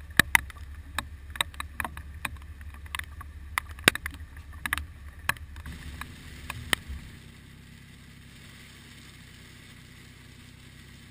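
Irregular sharp taps and knocks on a small aluminium boat in heavy rain, over a low wind rumble. About seven seconds in this gives way to the steady low hush of a car's cabin on a wet road.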